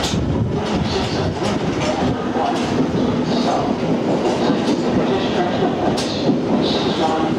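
1938 Tube Stock electric train running slowly past along the platform, a steady rumble of wheels and motors with irregular sharp clicks from the wheels on the rails.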